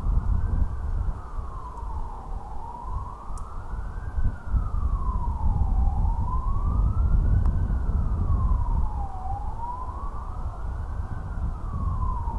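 Siren wailing, its pitch rising and falling slowly about once every three and a half seconds, over a steady low rumble.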